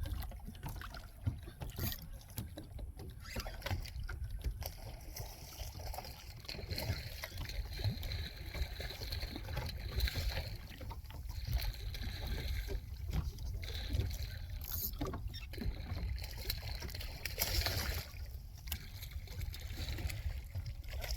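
Water lapping and sloshing around a fishing kayak, over a steady low rumble, with scattered small knocks and splashes.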